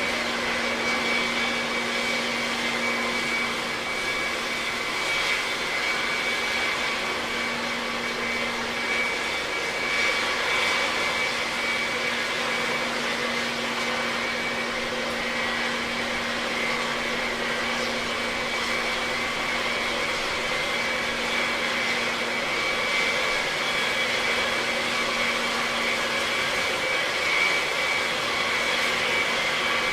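A vehicle running at a steady drone, with a constant high whine over a low hum and no change in pitch.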